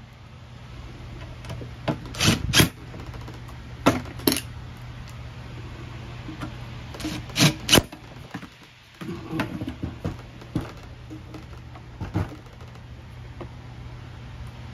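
Cordless drill/driver run in short bursts, several in pairs, driving screws into a turbine's sheet-metal cabinet, with clicks of the metal case being handled in between.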